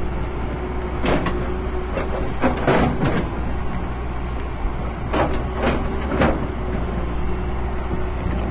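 Excavator's diesel engine running steadily, with a few sharp clanks and scrapes of its hydraulic rock breaker against stone about a second in, around three seconds, and again between five and six seconds.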